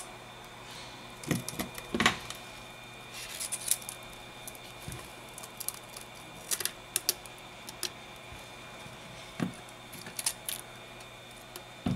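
Scattered clicks and light knocks of a smartphone's plastic and metal parts being handled and pried apart, over a faint steady hum.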